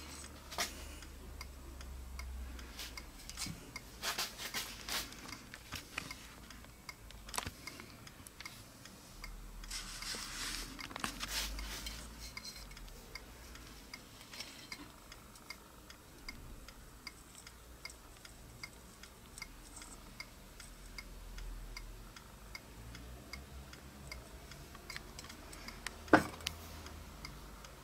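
Handling noises of tools and a metal spray can on a workbench: scattered light clicks and knocks, a short hiss about ten seconds in, and one sharp knock near the end, over a faint regular ticking.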